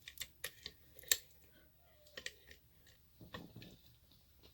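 Light clicks and taps of small metal tools being handled and set down on a desk: a quick run of sharp clicks in the first half, then a few softer knocks.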